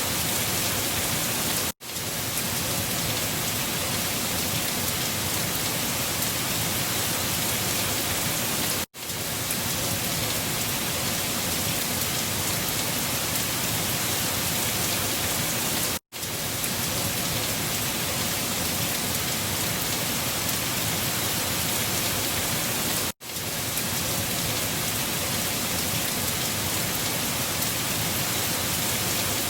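Steady, even rushing hiss of a storm recording, wind with a rain-like patter. It breaks off for a split second four times, about every seven seconds, as the looped recording restarts.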